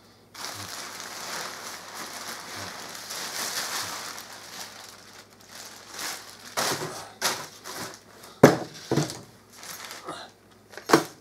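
Thin plastic bag crinkling and rustling as it is pulled off the folded nylon fabric of an inflatable snowman. There is a steady crackle for the first few seconds, then sharper separate rustles of plastic and fabric being handled, the loudest near the end.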